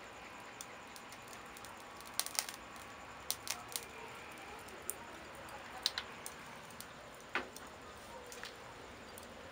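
Wood kindling burning on charcoal in a grill, crackling with about ten irregular sharp pops over a faint steady hiss.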